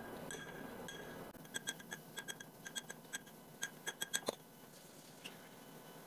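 A cocktail muddler pounding fruit inside a highball glass: quick, irregular glass clinks with a short ringing tone, starting about a second in, with one heavier knock a little after four seconds.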